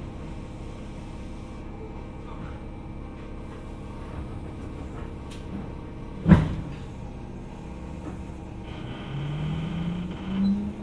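Jomo Electric Railway 700-series electric train (ex-Keio 3000 series) standing at a station with a steady hum, then the doors shut with a loud thud about six seconds in. About two seconds later the traction motors start to whine, rising in pitch in steps as the train pulls away.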